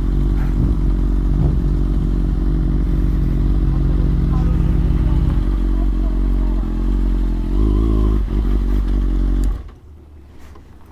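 Kawasaki ZX-6R 636's inline-four engine running steadily at low revs, then shut off abruptly about nine and a half seconds in.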